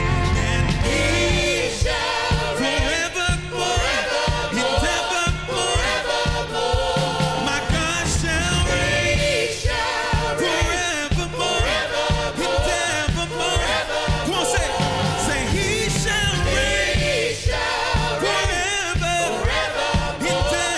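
A live worship band and vocal group perform a gospel-style song: several singers over keyboard, bass, electric guitar and a drum kit keeping a steady beat.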